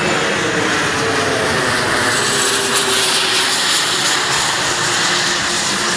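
An aircraft flying low overhead: a loud, steady engine rush with one tone that slowly falls in pitch as it passes.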